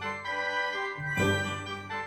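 Background music: a light, bell-like melody over a bass line, with notes changing about once a second.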